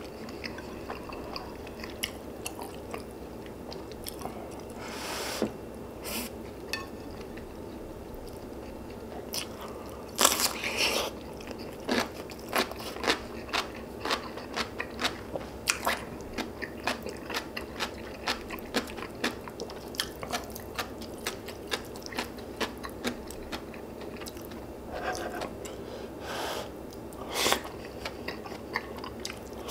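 Close-miked eating: steady chewing with many small wet clicks, crunchy bites and a few louder bursts about 5 and 10 seconds in and again near the end.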